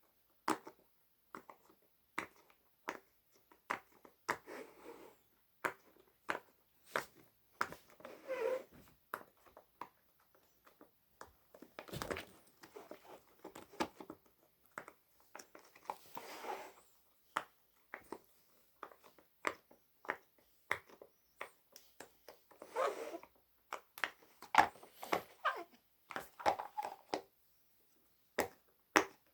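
Silicone pop-it fidget toy bubbles being pressed: a long run of irregular sharp pops, mixed with short squeaky sounds from the silicone being squeezed.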